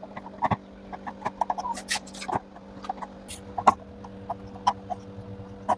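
Irregular light clicks, taps and rubs of hands working a rubber gasket onto the plastic outer tub of a front-loading washing machine, over a faint steady hum.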